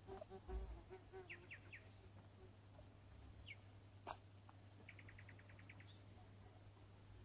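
Near silence over a steady low hum, with faint high chirps: three short ones early on, a single one later, and a quick run of about ten about five seconds in. A single sharp click about four seconds in is the loudest sound.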